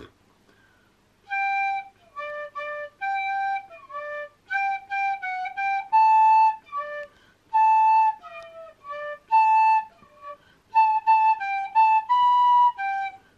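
Recorder played by an unpractised player, picking out a simple melody note by note. After about a second of quiet the notes come in short halting phrases with brief pauses between them.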